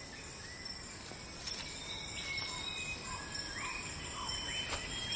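Tropical rainforest ambience: a steady, high-pitched insect drone with short, rising whistled calls scattered through it.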